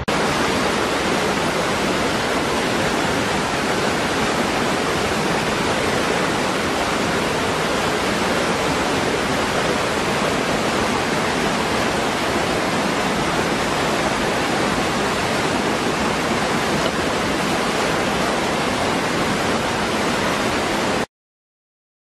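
Small waterfall plunging into a rocky pool: a steady, even rush of falling water that cuts off suddenly near the end.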